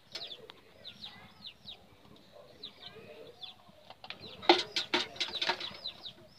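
Small birds chirping over and over: quick, high, downward-sliding chirps several times a second. About four and a half seconds in comes a brief cluster of louder, sharper sounds.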